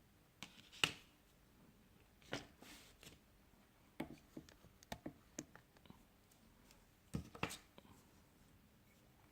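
Scattered faint clicks and taps from a smartphone being handled and turned over on a workbench while its edges are checked for an opening.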